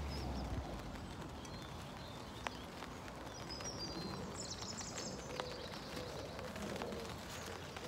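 Light rain falling, a steady soft hiss with scattered small ticks. A single sharp click comes about two and a half seconds in, and birds chirp briefly around four seconds in.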